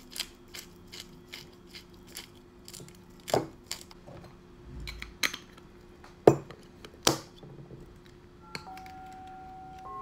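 Hand pepper grinder clicking as it is twisted, then a few sharp knocks and clinks of the glass grinder and crockery being set down on a table. Near the end, soft sustained chime-like music tones begin.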